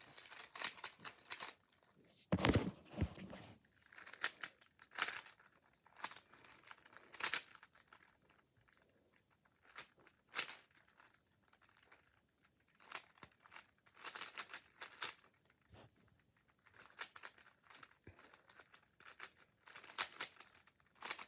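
A plastic 3x3 Rubik's cube being turned by hand: irregular runs of clicks and scraping as its layers rotate, with short pauses between the runs.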